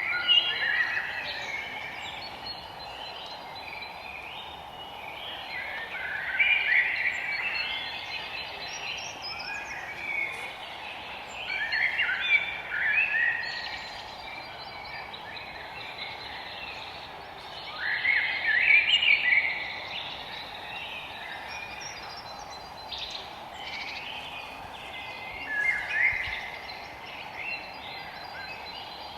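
Forest birdsong: a bird sings short phrases of quick warbling notes every five or six seconds, over a steady background hiss.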